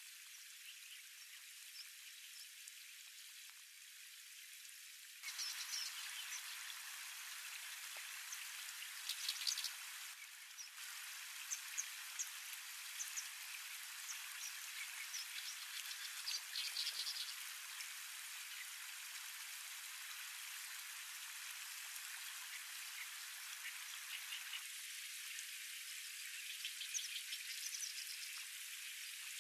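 Shallow water lapping and trickling among shoreline stones: a steady hiss with scattered small drips and ticks, fuller and louder from about five seconds in and thinner again near the end.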